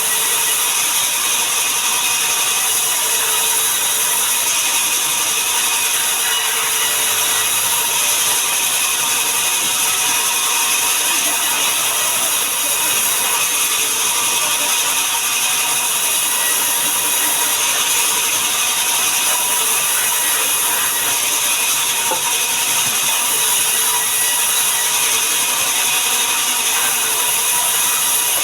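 Sawmill machinery running continuously: a loud, steady, high-pitched mechanical noise without pauses.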